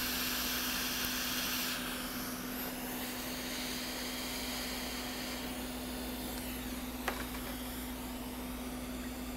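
Hot air rework station blowing at its highest airflow: a steady hiss over a low hum. The hiss softens about two seconds in, and there is a single small click about seven seconds in.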